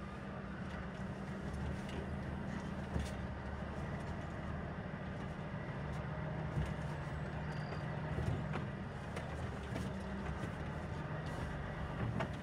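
Volvo FH logging truck's diesel engine running steadily at low revs, with a slight change in engine note about halfway through.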